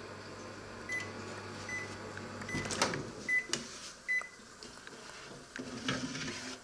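Panasonic combination microwave oven humming steadily, with several short high beeps; the hum stops about two and a half seconds in, the door opens with a sharp click, and the metal grill tray knocks and rattles as it is slid out.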